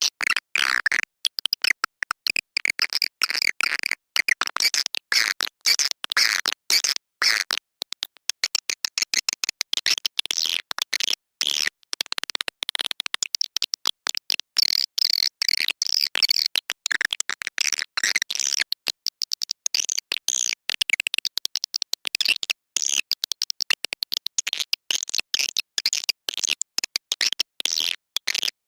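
Swiftlet call recording: a dense, unbroken stream of rapid high chirps, twitters and clicks. It is the kind of lure track played from speakers to draw edible-nest swiftlets into a swiftlet house to roost and nest.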